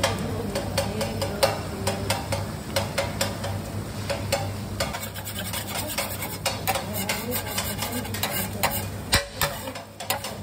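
A steel spatula scraping and knocking on a flat iron griddle, many quick irregular taps, over the steady sizzle of eggs frying in hot fat. The knocks briefly thin out near the end.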